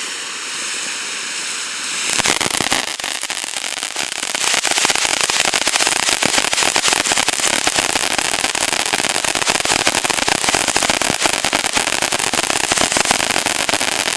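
Dragon Tears firework fountain burning with a steady hiss. About two seconds in it breaks into dense, rapid crackling, which grows louder around four seconds in and keeps going.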